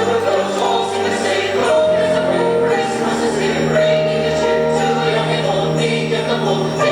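Christmas music with choir singing in long held notes and jingle bells.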